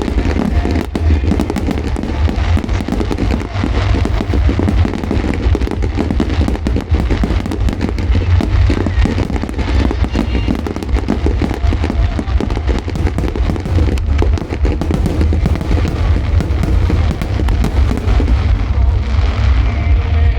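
Aerial fireworks going off in a dense barrage: rapid booms and crackles following each other many times a second over a heavy low rumble, with music playing underneath. The crackling thins out near the end.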